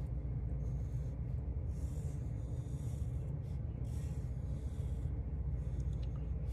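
Pencil drawing on paper: short, scratchy strokes that come and go at irregular intervals, over a steady low background hum.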